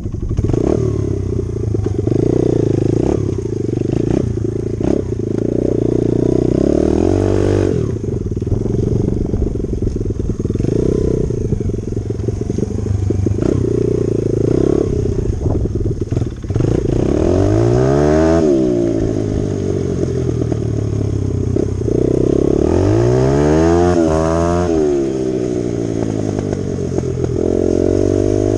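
Dirt bike engine running under load as it is ridden. The engine note drops and climbs again a few times as the throttle is rolled off and back on.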